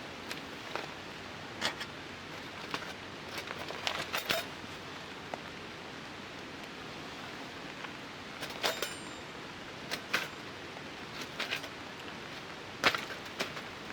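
Steady rain hissing on a tarp, with scattered sharp clicks and taps, one of them near the middle carrying a brief metallic ring.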